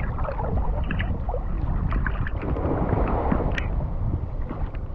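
Shallow seawater sloshing and splashing around men wading waist-deep as they haul a fishing net, heard right at the water's surface, over a steady low rumble.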